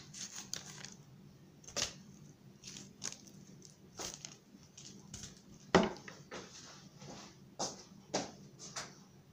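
Kitchen handling sounds from hands working at a counter: about six scattered knocks and taps, the loudest about six seconds in, over a faint steady low hum.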